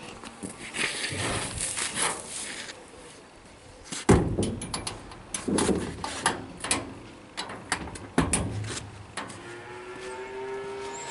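Metal clunks, knocks and rattles as the steel tipping box's rear door on a towed paddock vacuum is swung shut and latched, with footsteps on concrete. Near the end comes a drawn-out animal call.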